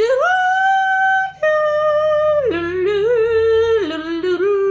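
A singing voice imitating a rooster's crow in long, drawn-out notes that slide from high to lower pitch, as in a children's animal-sounds song.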